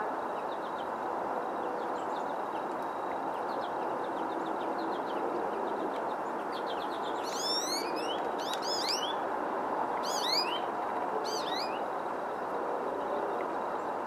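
Small songbird chirping: about halfway through, four quick clusters of high notes, each sweeping up and then down, with faint scattered chirps before them, over a steady background noise.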